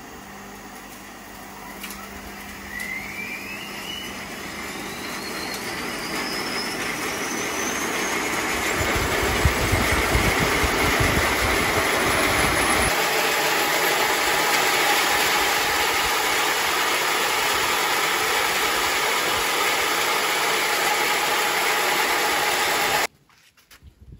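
Horizontal band sawmill driven by a 4 HP electric motor, running up to speed: a whine rising in pitch over several seconds as the noise grows louder, then a steady loud running noise. It cuts off suddenly near the end.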